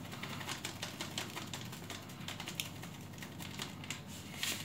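Fast, irregular crackling and ticking from a pot on a hot stove burner: water trapped under the pot is crackling on the hot surface.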